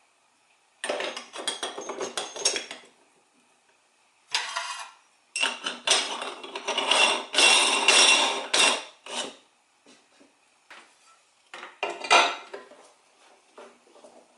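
Metal kitchen things being handled: irregular clattering and clinking in several bursts with pauses between, the longest lasting about four seconds.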